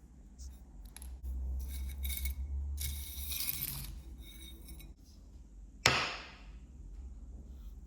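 Eggshell crackling and scratching as a boiled white egg is peeled by hand over a ceramic plate, busiest in the first half. About six seconds in comes one sharp knock with a short ringing decay, the loudest sound.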